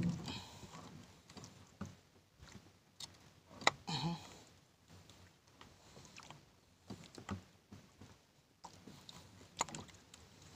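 Scattered small knocks, clicks and rustles of a large fish being handled at a boat's side while a fishing hook is worked out of its mouth, with two brief louder scuffles, one at the start and one about four seconds in.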